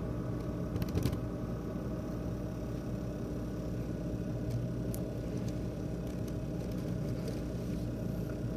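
ASUS X543UA laptop CPU fan running with a steady buzzing hum: a faulty fan that rattles and buzzes. A few sharp clicks come about a second in.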